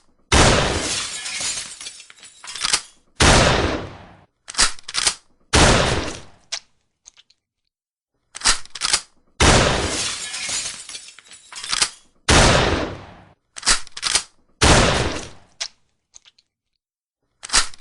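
Shotgun sound effects: a string of about six loud shots, each trailing off over a second or more, with shorter sharp cracks in between and silent gaps between the groups.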